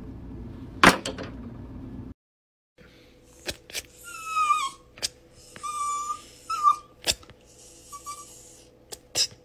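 One loud sharp crack about a second in over faint room noise. After a brief break, a Shiba Inu whines in several short high calls, some falling in pitch at the end, with sharp clicks between them.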